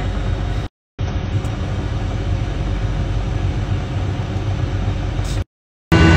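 Private jet cabin noise in flight: a steady low rumble with a hiss over it. It cuts out briefly twice, about a second in and near the end, and music begins right at the end.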